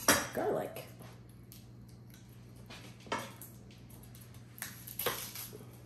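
Chef's knife cutting garlic on a cutting board: a few short, scattered knocks as the blade meets the board.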